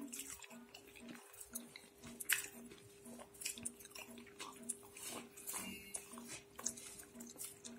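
Close-up chewing of a mouthful of hand-mixed rice and curry, with scattered mouth clicks and soft sounds of fingers mixing rice on a plate.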